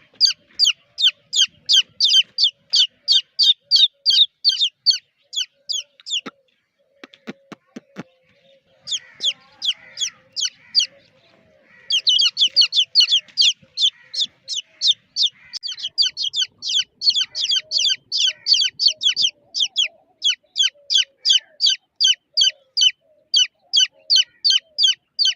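Chicks peeping: a fast, steady run of short, high, falling cheeps, about four a second. About six seconds in they stop for roughly two and a half seconds, broken only by a few sharp clicks, then start again.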